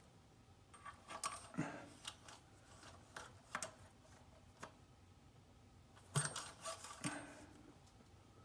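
Faint handling sounds of an engine-oil dipstick being wiped with a rag and slid in and out of its tube: light metallic clicks and scrapes with rag rustling, in two short clusters about a second in and about six seconds in.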